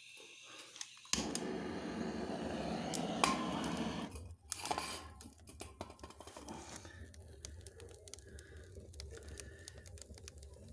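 Wood fire taking hold in the firebox of a Viadrus wood-fired boiler: a rushing hiss for about three seconds, then, from about halfway through, steady crackling and snapping of burning kindling and logs.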